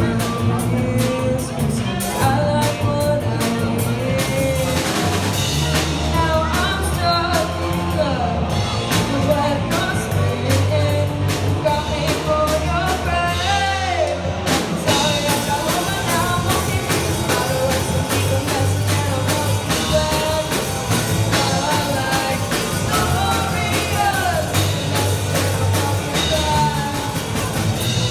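Live rock band performing: a singer's voice over drum kit and bass, with a short break about halfway through.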